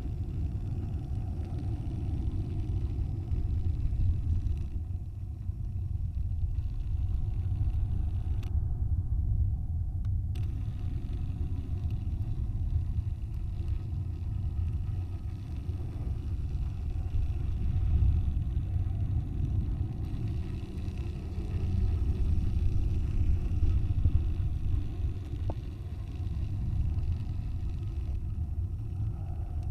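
Wind rumbling on the microphone of a camera in a high-altitude balloon's payload. It is a steady low rumble that swells and eases.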